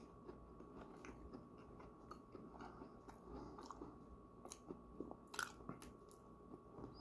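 Faint chewing and small clicks of a fork cutting into a mincemeat pie and tapping its foil tin, with a sharper click about five seconds in as a forkful goes to the mouth. A faint steady high hum runs underneath.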